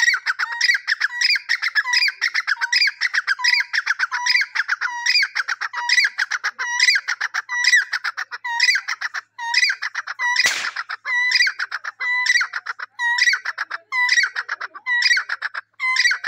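Teetar (partridge) calling in a rapid, unbroken series of short repeated notes, several a second. A single sharp click cuts through about ten and a half seconds in.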